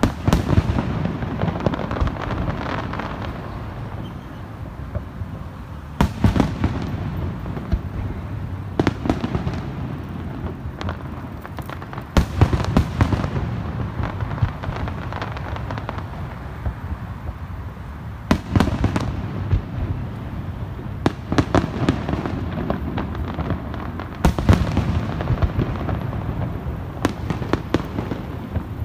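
Aerial firework shells bursting in a sustained barrage: sharp bangs at irregular intervals, several loud ones a few seconds apart, over a continuous rumble of overlapping reports.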